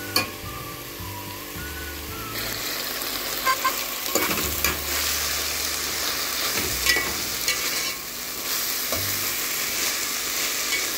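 Shredded cabbage, carrots and peppers sizzling in a stainless steel pot while a slotted metal spoon stirs them, clinking and scraping against the pot several times. The sizzle grows louder about two seconds in as the water the vegetables released cooks off.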